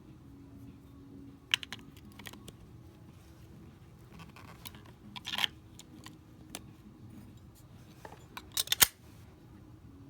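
Scattered sharp clicks and small handling knocks from a SMOK X Cube II box mod whose buttons are being pressed while it fails to power on, with a short scraping sound about five seconds in and a quick burst of clicks near the end.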